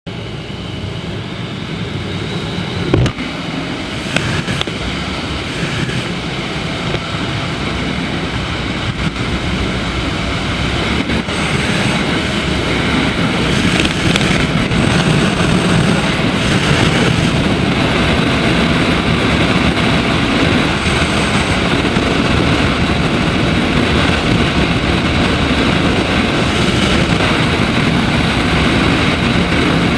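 Daelim Daystar 125 cruiser's small V-twin engine running under way on the open road, growing louder over the first dozen seconds and then holding steady. A single sharp knock about three seconds in.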